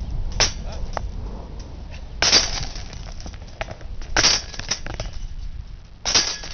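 Metal disc golf basket struck hard four times, about every two seconds, each hit a loud crash with a short jangling ring.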